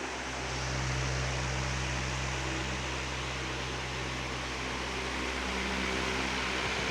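Arge Stylo 50 cm pedestal fan running steadily: a low motor hum under the hiss of moving air.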